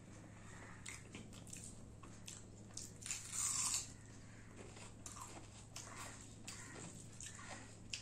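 Close-miked eating sounds of a woman eating rice and dal by hand: fingers squishing the food together in a steel plate, then wet chewing and mouth clicks. A louder, hissy burst comes about three seconds in as a handful goes into her mouth.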